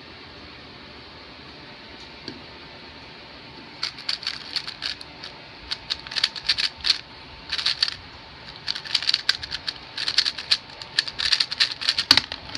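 3x3 speedcube being turned very fast in a speedsolve: quick runs of plastic clicking from the turning layers, in bursts with short pauses, starting about four seconds in. It ends with one louder knock as the solve finishes at the timer.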